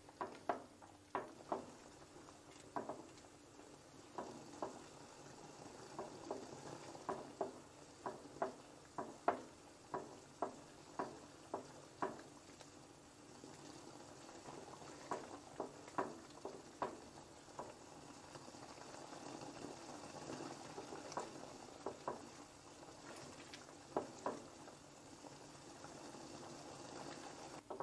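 Thick cream sauce simmering in a frying pan as it reduces and thickens, stirred with a silicone spatula. Irregular soft bubble pops, about one or two a second, over a faint steady hiss.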